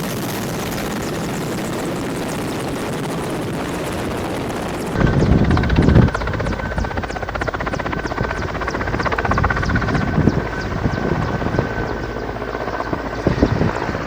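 Helicopter in flight, its engine and rotor running steadily. About five seconds in, the sound changes abruptly from an even rush to a louder, lower rotor beat with a steady whine over it.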